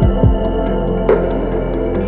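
Ambient background music of long held tones, with a couple of short low downward sweeps near the start and a soft struck accent about a second in.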